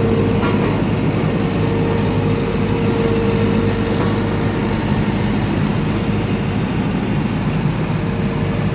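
Road roller's engine running steadily with a constant hum.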